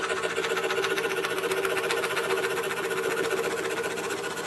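DeWalt scroll saw running steadily, its blade stroking rapidly as it cuts out small slats in thin wood.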